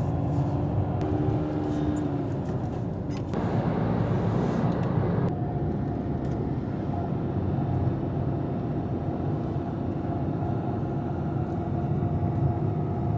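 Car cabin noise while driving: engine and tyre rumble running steadily, with a louder hiss for about two seconds a few seconds in.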